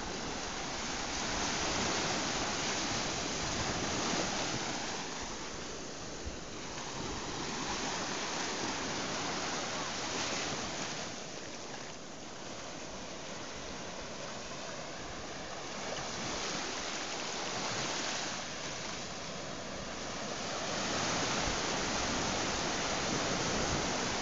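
Small sea waves breaking in the shallows and washing foam up over sand, a steady surf that swells and eases every several seconds.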